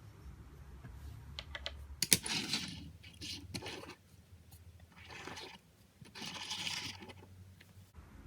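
Small plastic toy pieces handled and snapped together: a few light clicks, one sharp click, then several short rustling, scraping bursts.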